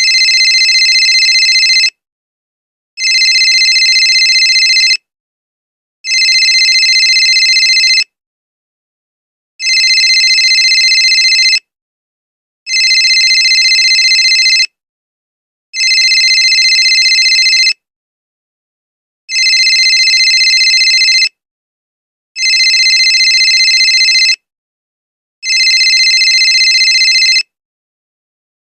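Phone ringtone ringing in a telephone-style ring: nine rings of about two seconds each, with a pause of roughly a second between them.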